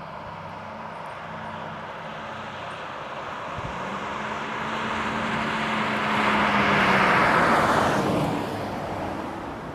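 A car passing by on the road: tyre and engine noise swells to its loudest about two-thirds of the way through, then fades away.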